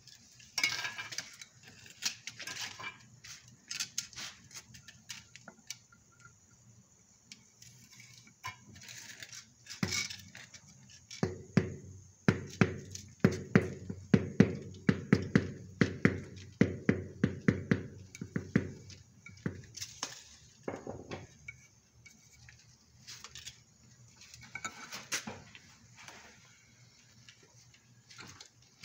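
Hard tools knocking and clinking on terrazzo floor tiles: scattered clinks, then a run of sharp knocks, two or three a second, for about eight seconds in the middle.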